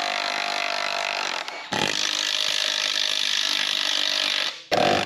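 Power tool running in long bursts as it backs out exhaust heat-shield bolts. It stops briefly about two seconds in, runs again, and ends with a short burst.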